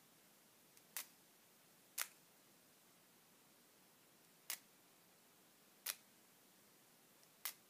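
The spring-loaded bit-change mechanism of a Husky Retract-a-bit auto-advance screwdriver clicking as bits are retracted and advanced one after another: five sharp single clicks, spaced about one to one and a half seconds apart.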